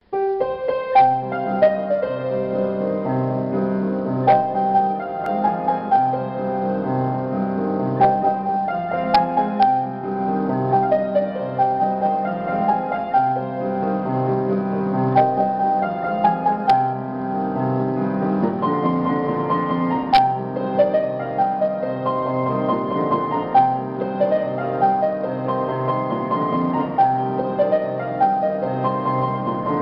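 Instrumental piano backing music: a melody over a steady, regularly pulsing bass line.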